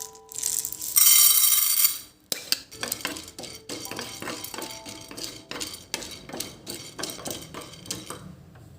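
Dishes and utensils clinking and clattering in a long run of small sharp knocks, after a loud rushing hiss lasting about a second near the start. Soft background music notes come and go.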